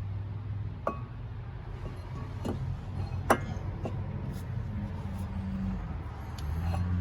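A few sharp metallic clinks of tools and brake parts being handled during caliper and pad fitting, the loudest about three seconds in, over a steady low hum.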